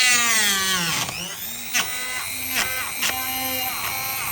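Electric grinder spinning a playing card as its cutting disc against a plastic toy. The motor's whine drops in pitch at the start as it takes load, then runs steadily, with a few short ticks of the card striking the plastic.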